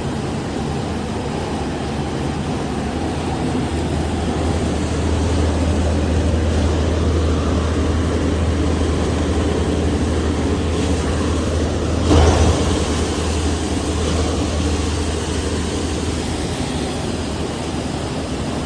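Plastic scrap cutting machine running steadily, a low motor hum under a constant grinding rush, growing louder a few seconds in, with one brief louder burst about twelve seconds in.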